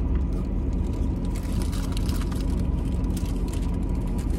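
Steady low rumble of a car's idling engine, heard from inside the cabin, with a few faint rustles and clicks of paper food wrapping.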